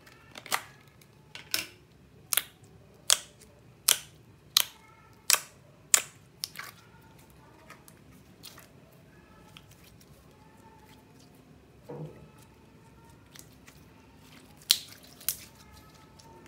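Glossy slime pressed and poked by hand, giving sharp popping clicks as trapped air bursts: a run of eight evenly spaced pops in the first six seconds, a softer squish near the middle, and two more pops near the end.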